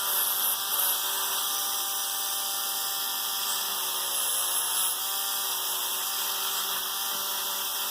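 Small rotary tool running steadily with a copper wire brush, a steady whine, polishing a spring-steel socket.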